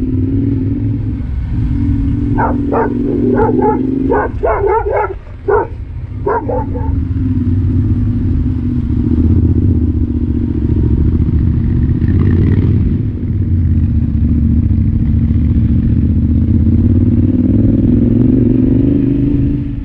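Yamaha Ténéré 700's parallel-twin engine running steadily while the bike is ridden. A dog barks repeatedly in quick succession from about two to seven seconds in.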